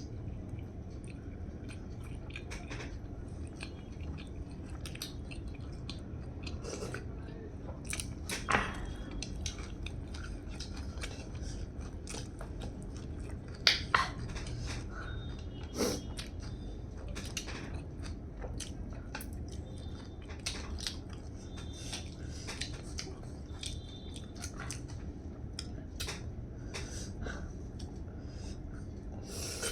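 A person chewing and biting food, with many small mouth clicks and a few louder knocks around the middle.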